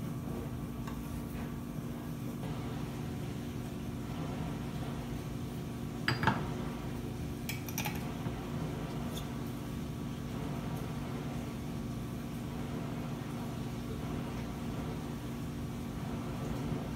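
Steady low hum of kitchen room tone. About six seconds in there is a short squeak that falls in pitch, then a few light clicks as a small glass jar and a utensil are handled.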